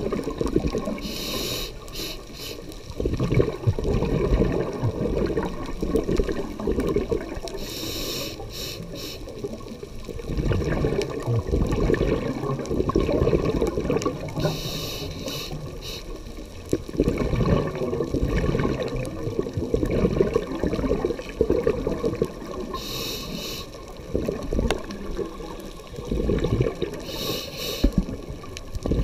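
Scuba diver breathing through a regulator, heard underwater through the camera housing. A short hiss on each inhale comes about every six or seven seconds, and a bubbling rumble of exhaled air fills the time between.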